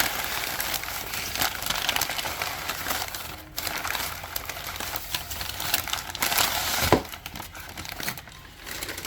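Packaging crinkling and rustling steadily, with many small crackles, as items are pulled from a package and handled. A sharp knock comes about seven seconds in, and the rustling is quieter after it.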